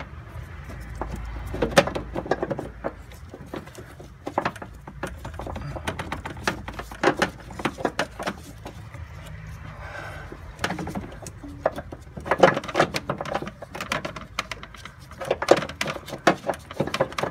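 Hand tools and metal parts clicking and rattling in bursts: about four clusters of rapid clicks a few seconds apart.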